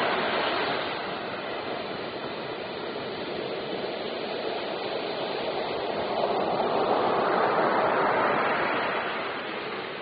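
Ocean surf breaking on a beach: a steady rushing wash of foam that swells again from about six to nine seconds in as another wave breaks.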